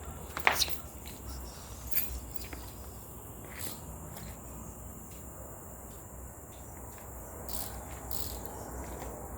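A steady, high insect trill, like crickets, runs throughout, with a low hum beneath it. A few sharp clicks and knocks of parts being handled break over it; the loudest comes about half a second in and a smaller one at about two seconds.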